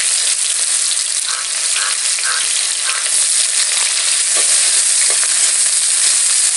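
Chopped onions sizzling loudly in hot oil in a metal kadhai, a steady high hiss, while a slotted metal spatula stirs them through the pan.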